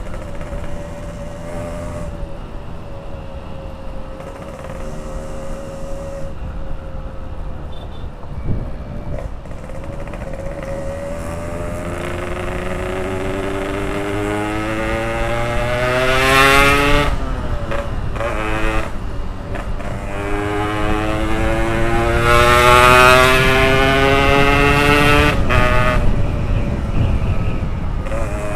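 Yamaha RX-King two-stroke single-cylinder motorcycle engine under way. It runs steadily at first, then revs up twice, rising in pitch and dropping back sharply at gear changes about 17 and 26 seconds in. Wind rumble on the microphone runs underneath.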